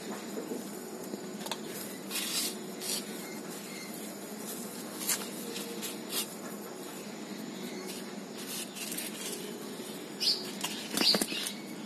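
Hands pressing and rustling crumbly potting soil around a fern in a terracotta pot: scattered soft crackles over a steady low background hum. A few short bird chirps come in near the end.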